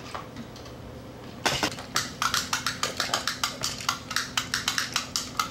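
Screwdriver working the battery-cover screw on a remote-control T-Rex toy, making quick, even clicks about four a second. The clicks start about a second and a half in.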